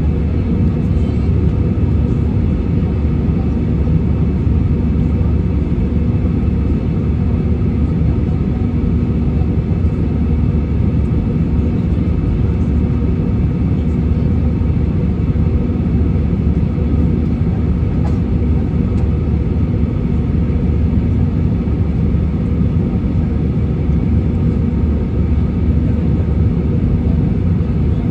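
Steady engine and airflow noise inside a passenger airliner's cabin in flight, a constant low drone with a faint hum.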